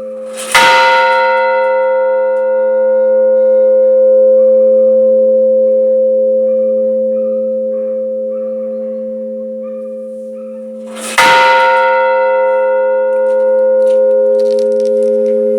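A deep, low-pitched bell struck twice, about ten and a half seconds apart. After each strike it rings on in a long, layered hum that slowly swells and fades.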